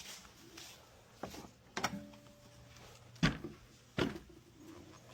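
A few separate sharp knocks and clatters, about four spread over several seconds, over a faint steady hum.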